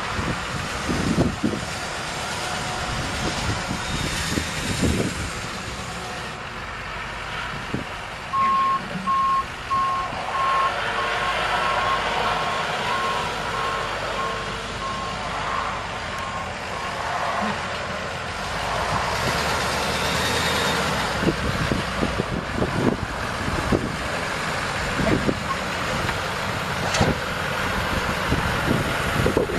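Diesel truck engine running, a 6.6 L Duramax V8 in a GMC C5500 dump truck, with occasional knocks. A backup alarm beeps steadily at one high pitch for about eight seconds, starting about eight seconds in.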